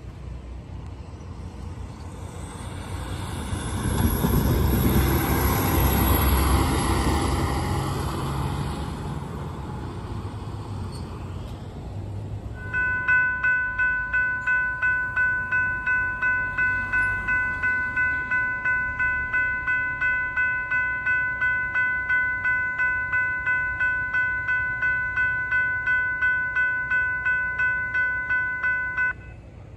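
A rumble swells and fades over the first several seconds. Then a railroad grade-crossing warning bell starts ringing, with rapid, even strikes at about two and a half a second, and cuts off suddenly near the end.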